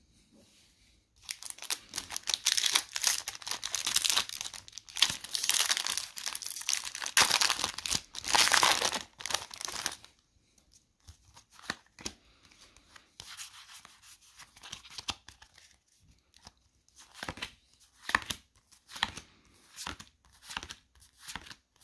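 Foil Pokémon booster pack wrapper being torn open and crinkled for several seconds, then softer, separate rustles and flicks of the cards being handled.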